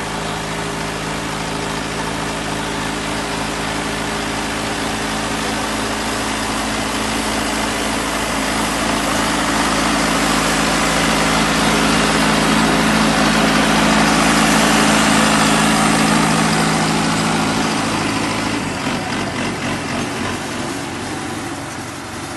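Mahindra Arjun 555 tractor's diesel engine, fitted with an aftermarket turbo, running steadily while pulling a 13-tine cultivator through plowed soil. It grows louder toward the middle as the tractor comes close, then its note drops and fades near the end.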